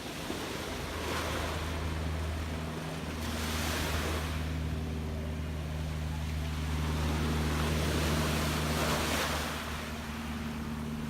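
Gentle sea waves washing in, the surge rising and falling every few seconds, over a steady low hum.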